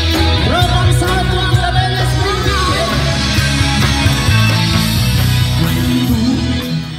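Live band music played through a PA system, with a singer's voice over bass and drums.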